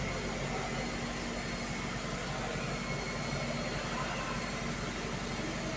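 London double-decker bus engine idling, a steady low hum with an even hiss that does not change.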